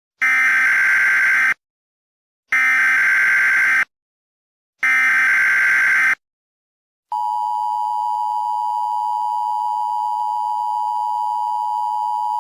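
Emergency Alert System tones: three harsh, screeching digital SAME header bursts, each about a second and a half long with about a second's gap between them. About seven seconds in, the steady two-tone EAS attention signal begins and holds.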